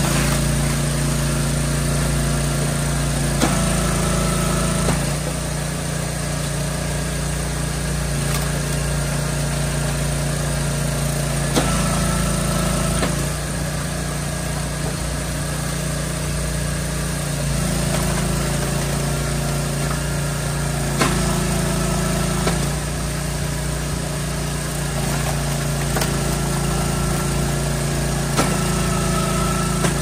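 Wood splitter's engine running steadily, its note shifting every few seconds, with a few sharp knocks.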